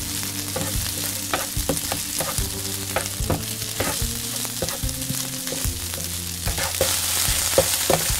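Egg-coated rice sizzling in hot oil in a nonstick frying pan while a wooden spatula stirs and scrapes it, with frequent short scraping strokes. The sizzling grows louder near the end.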